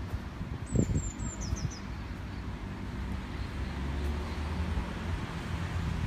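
Wind buffeting the microphone in a steady low rumble, with a bird giving a quick run of short falling chirps about a second in.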